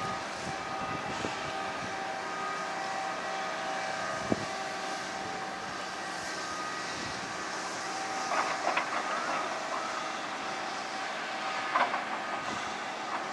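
Heavy machinery running steadily, most likely the large crawler crane's diesel engine and hydraulic drive, with a hum of several steady whining tones. Brief rattles come about two-thirds of the way through and again near the end.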